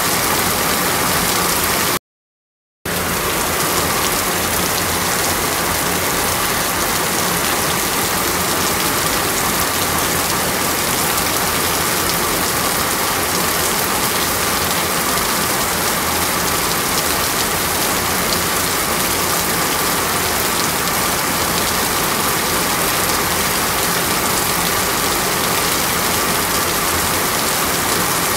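Steady, loud rush of heavy rain and flowing floodwater. It cuts out completely for under a second about two seconds in.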